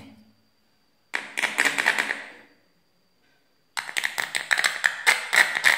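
Rapid crackling clicks in two bursts, the first about a second and a half long, the second about two and a half, as a metal tool is worked over the solder joints of a small amplifier board. A faint steady high whine sounds between the bursts.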